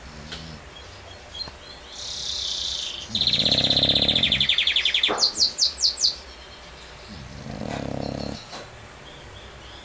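English bulldog snoring: a breath about two seconds in, then a loud, fast-fluttering rattle that ends in about five short, high squeaks, and a softer snoring breath near the end.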